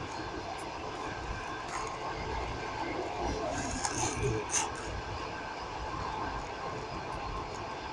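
Passenger train running: a steady rumble of wheels on the rails heard from inside the carriage, with a few short sharp clicks near the middle.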